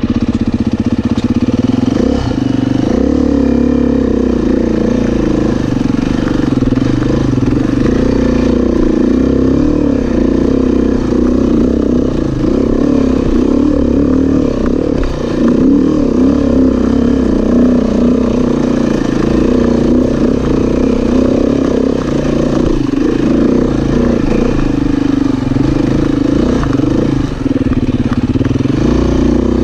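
2017 Beta 500 RR-S dirt bike's single-cylinder four-stroke engine pulling under load up a steep dirt hill, its pitch rising and falling with the throttle.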